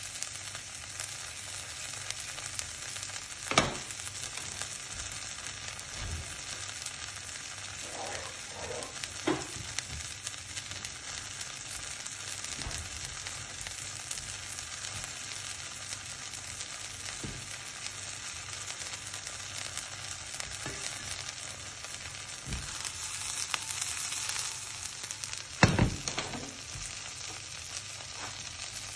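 Sliced stinkhorn eggs sizzling steadily in a frying pan, with a few sharp knocks of a spatula against the pan. The sizzle swells briefly shortly before the loudest knock near the end.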